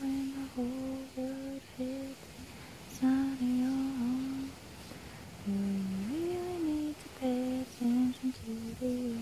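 A person humming a slow, wordless tune: a string of held notes with short breaks between them and one upward slide about six seconds in.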